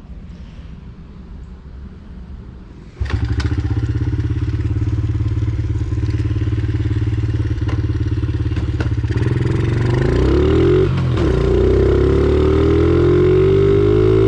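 Dirt bike engine comes on suddenly about three seconds in and runs steadily at idle, then is revved and accelerates with a rising pitch from about ten seconds in, dipping briefly before rising again, as on an upshift.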